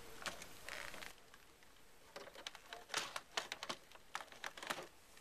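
Faint, irregular clicks and light taps of hands working at a prop control console, mostly in the second half.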